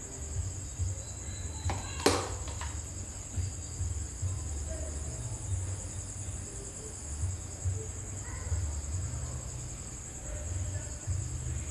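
Insects chirring steadily in a high band, over an uneven low rumble, with one sharp click about two seconds in.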